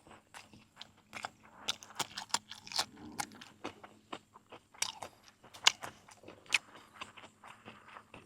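Close-miked mouth sounds of eating: chewing and crunching with many irregular sharp clicks, a mouthful of raw beef salad with fresh vegetables and sticky rice.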